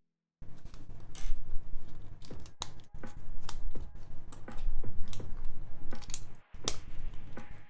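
Irregular clicks and clatter of small plastic Lego pieces being handled and pressed together, with the sound dropping out completely for a moment at the start.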